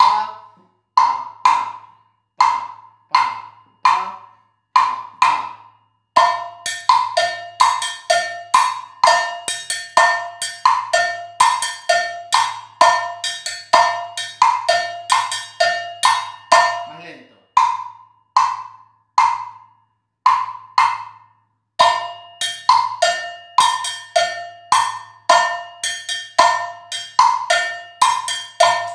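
A red plastic jam block struck with a stick, tapping out the 3-2 clave, is joined about six seconds in by a cowbell (campana) played in a dense, ringing pattern. The cowbell stops for a few seconds around two-thirds of the way through, leaving the block alone, then comes back in.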